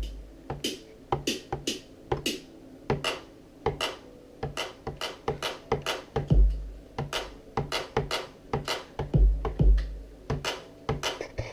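Electronic drum-kit samples in Ableton Live triggered from a Novation MIDI keyboard: a loose, uneven run of sharp cymbal- and snare-like hits, with a few deep kick-drum hits that are the loudest moments.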